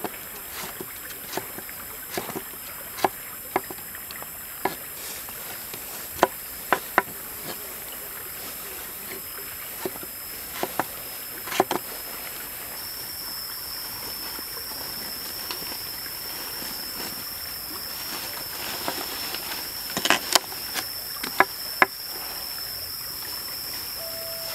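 Chef's knife cutting vegetables on a wooden cutting board: irregular sharp knocks of the blade striking the board, some in quick pairs and clusters.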